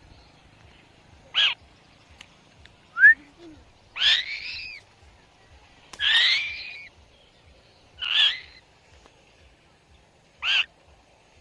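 A bird giving six harsh, rasping calls spaced about two seconds apart; one of them is a short rising chirp.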